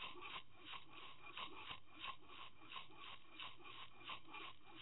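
Rhythmic rasping rub, about three strokes a second, picked up by an underwater camera being towed while trolling. It is the sound of the rig's snap swivel and line hardware working against the camera housing as it moves through the water.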